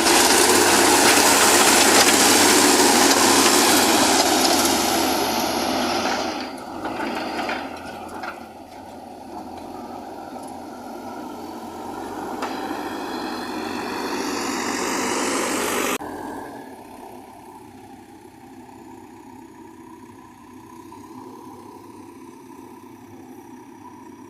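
Heavy vehicle engine running, loud for the first few seconds and then quieter. A rising whine builds before the sound cuts off abruptly about 16 seconds in, leaving a lower steady running sound.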